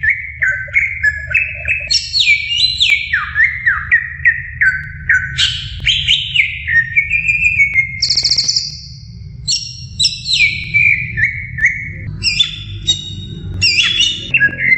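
Cucak ijo (greater green leafbird) singing a fast, continuous run of loud whistled notes, most of them sliding downward, with a brief high rattling trill about halfway through. A low steady hum runs underneath.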